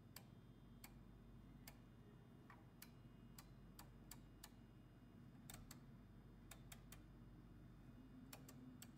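Faint, irregular clicks from the detented setting knobs of a Yokogawa 2553A DC calibrator as they are turned step by step to change its output voltage, some single and some in quick runs, over a low steady hum.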